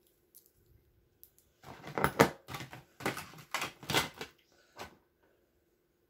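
Small metal interchangeable heads for snap ring pliers clicking and rattling as they are handled. A cluster of clatter lasts about three seconds.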